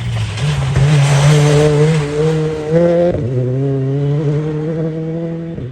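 Rally car engine pulling hard under load, its pitch dropping sharply about three seconds in and again near the end, as at an upshift, then climbing again.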